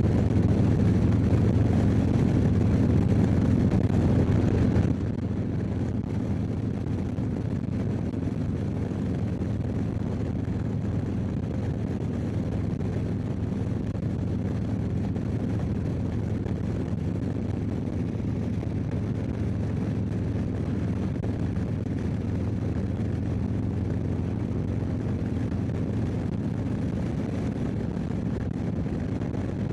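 Harley-Davidson touring bagger's V-twin engine running steadily at highway speed, with wind noise, heard through a mini microphone inside the rider's helmet. The overall level drops suddenly about five seconds in, then holds steady.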